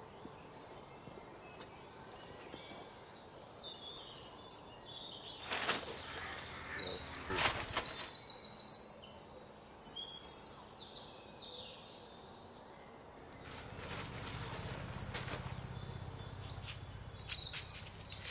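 Small birds chirping in quick, repeated high calls, busiest in the middle and again near the end, over outdoor background noise. A low hum swells and fades in the second half.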